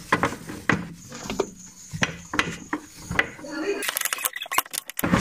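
Metal clanks and knocks as a new steel front lower control arm is forced by hand into its mounting on a Proton Iswara, with a quick run of clicks near the end as it goes into place.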